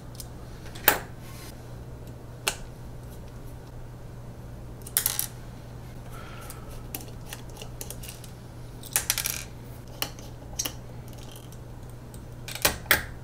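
Scattered sharp clicks and light metallic ticks: small steel screws from the extruder housing dropping onto the printer's textured build plate, along with handling of the plastic extruder housing.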